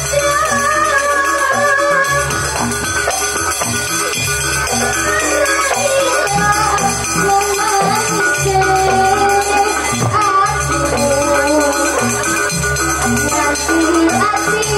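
Jaranan ensemble music playing steadily: a wavering melody over sustained low tones, with shaken, jingling rattle-type percussion.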